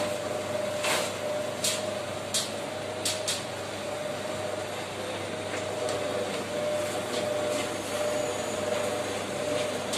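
Rotisserie grill machine running: a steady whirring hum with one constant tone and a hiss, from the spit motor turning the chicken and the gas burners. A few short sharp crackles come between about one and three and a half seconds in.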